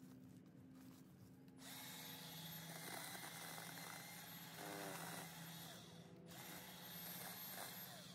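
A power tool running in two bursts: it starts about a second and a half in, runs for about four seconds, stops briefly, then runs again for about a second and a half.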